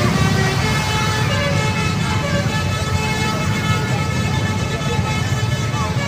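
Tour bus's multi-tone telolet horn sounding in held tones, over the rumble of motorbike engines and the voices of a crowd.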